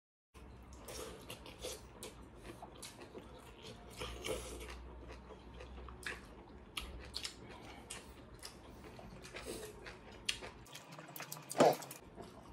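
Eating by hand: soft, scattered smacks and clicks of chewing and of fingers working rice and curry on a banana leaf. A short, louder sound comes near the end.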